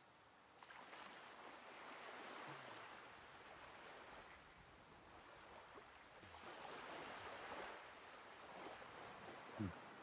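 Faint sea surf, swelling and fading twice as waves wash in. A brief low sound shortly before the end.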